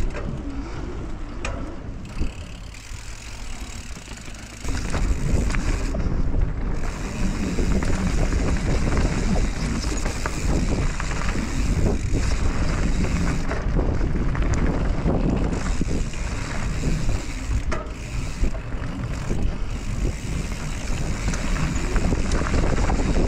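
Mountain bike rolling fast down a dirt and gravel singletrack, heard from a camera on the rider: wind rushing over the microphone, tyres crunching over the dirt and gravel, and the bike knocking and rattling over bumps. It drops quieter for a couple of seconds near the start, then gets louder again about five seconds in.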